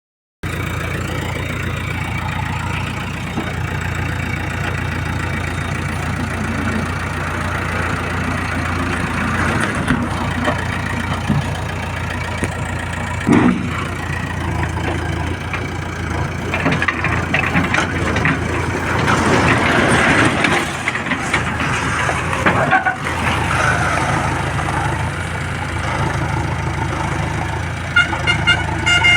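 Diesel engines of a tractor and backhoe running steadily under way, with a low hum throughout and road noise swelling midway; a vehicle horn gives several short toots near the end.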